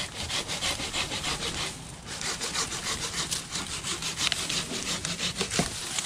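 Hand pruning saw cutting through a tree branch in quick back-and-forth strokes, with a short pause about two seconds in before sawing resumes.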